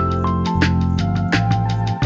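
Background music: a melody of notes struck about every half second over held low notes.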